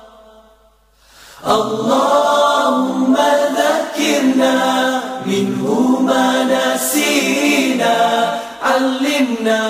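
A group of voices chanting Quranic recitation in unison, in long melodic phrases. The chanting comes back in after a short pause about a second in.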